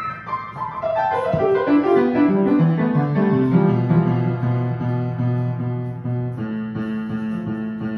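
A child playing an upright piano: a run of notes falling from the treble down into the bass over the first few seconds, the low notes left ringing. A new chord is struck about six seconds in and held.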